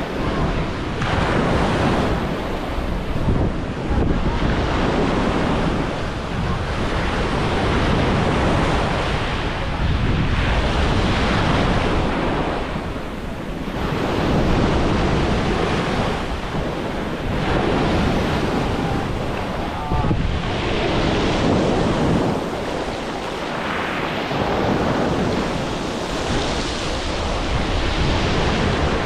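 Sea waves washing onto a beach, swelling and easing every few seconds, with wind buffeting the microphone.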